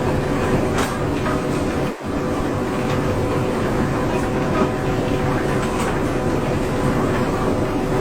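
A machine running steadily, with a constant hum and rattling noise, briefly cut out about two seconds in.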